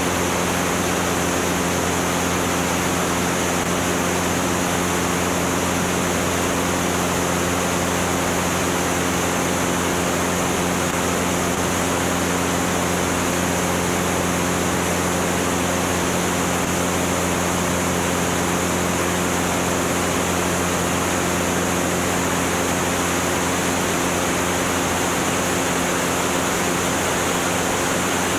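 Steady rush of wind over a camera mounted outside under the wing of a Cessna 205 in flight at about 100 mph, with the aircraft's piston engine and propeller droning as an even, unchanging hum beneath it.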